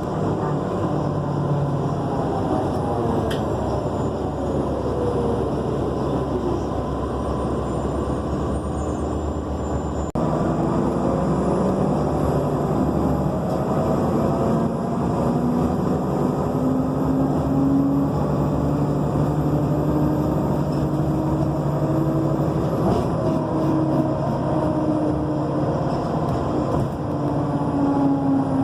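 Nova Bus LFS articulated city bus running, its drivetrain whine rising and falling with speed. A thin, very high screech sits above it from about a third of the way in until near the end.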